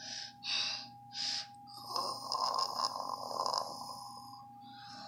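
A person making snoring noises with the mouth for a sleeping toy: three short breathy puffs, then a longer rasping snore about two seconds in. A faint steady high tone sounds underneath.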